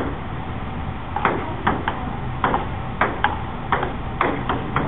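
Table tennis rally: the ball bouncing on the table and being struck by the paddles, about a dozen sharp clicks, often in quick pairs of bounce and hit.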